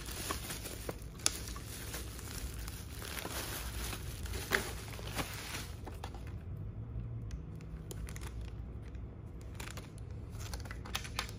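Bubble wrap and a clear plastic bag crinkling and rustling as a package is unwrapped by hand, with a few sharper crackles; the rustling thins out in the second half.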